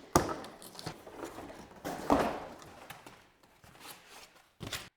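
Handling noises from a glass windshield being fitted to a utility vehicle's cab frame: three solid knocks and clunks, about at the start, two seconds in and near the end, with scraping and rustling between them.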